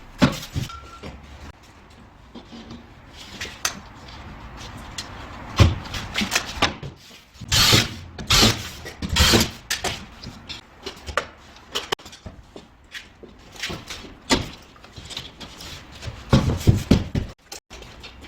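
Irregular knocks, taps and scrapes of handwork with tools and materials, with a few louder rasping strokes about halfway through and another burst of knocks near the end.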